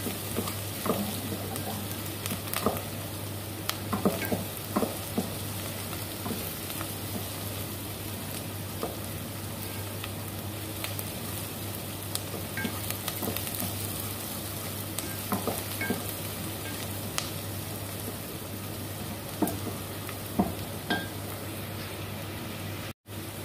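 Chopped onion and garlic sizzling as they sauté in oil in a pan, with scattered clicks of a utensil stirring against the pan. A steady low hum runs underneath, and the sound drops out for an instant near the end.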